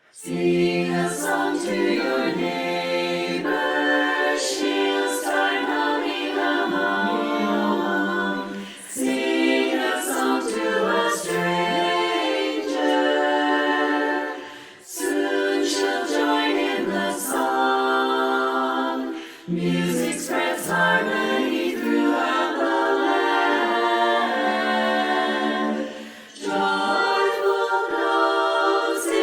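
Women's barbershop chorus singing a cappella in four-part harmony, a virtual-chorus mix of separately recorded voices. The singing comes in phrases with short breaks between them.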